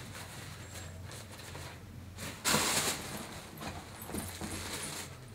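Fabric bags rustling and shuffling as they are rummaged through by hand, with one louder rustle about two and a half seconds in and a few smaller scuffs after it, over a low steady hum.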